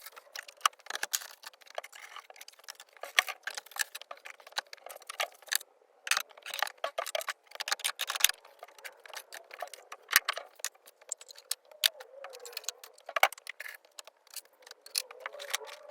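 Small hard items and tools clattering and rattling, many quick irregular clicks and knocks, as they are handled and moved into a cabinet.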